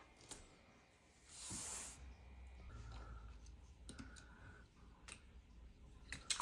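Faint scattered clicks with a short rustle about a second in, and a quick run of louder clicks near the end: small handling noises.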